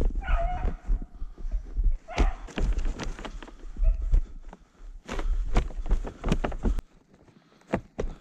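Footsteps crunching through snow and brush in an uneven walking rhythm, pausing briefly near the end.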